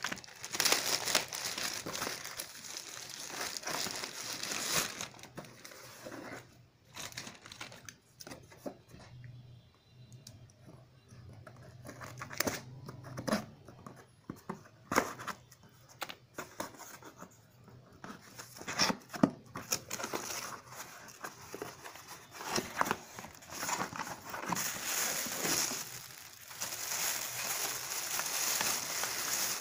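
Plastic packaging crinkling and tearing as it is handled and pulled open. In the middle, scissors snip through a cardboard box with scattered sharp clicks. Near the end comes a long stretch of crinkling plastic bag.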